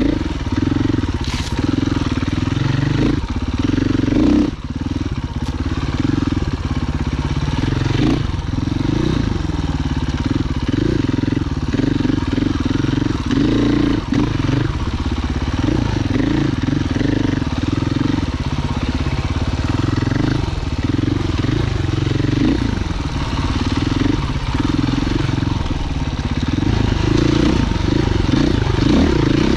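Husqvarna FE 501 single-cylinder four-stroke enduro engine running under constantly changing throttle, its pitch rising and falling as the bike is ridden along trail. A few sharp knocks in the first five seconds.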